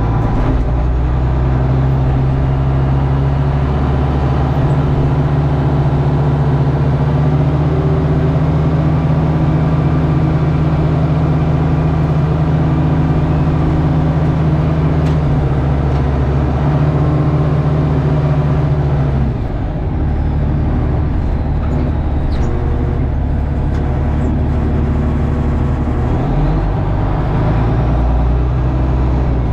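Old John Deere loader's engine running steadily under load while plowing through compacted snow and ice. Its note drops about two-thirds of the way through, then picks up again near the end.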